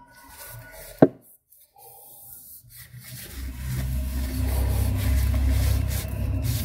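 Tissue paper rubbing along a laser printer cartridge's photosensitive drum as it is wiped clean, a steady low rubbing from about three seconds in. A single sharp click about a second in.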